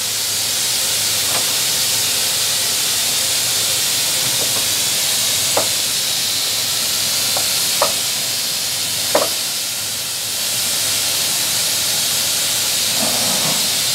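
700 W Boss fiber laser cutter cutting sheet metal: a loud, steady hiss from the assist-gas jet at the cutting head, with a few short high chirps around the middle.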